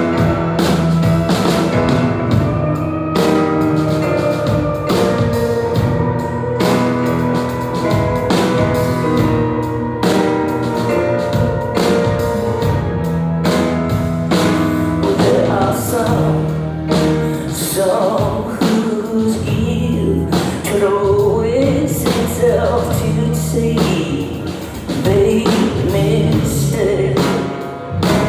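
Live pop performance: sustained keyboard chords over a steady electronic drum beat, with a woman singing, her voice clearest in the second half.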